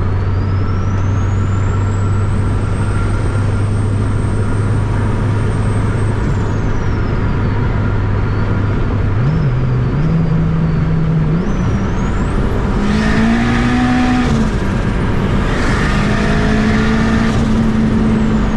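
Turbocharged Honda K-series four-cylinder engine running at a steady drone with a high turbo whistle over it. The engine note steps up in pitch about nine seconds in and again near twelve seconds, then surges twice under boost near the end, with a rising turbo whine.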